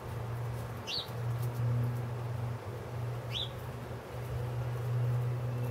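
Sparrows chirping in the background: two short, quick chirps about a second and about three seconds in, over a steady low hum.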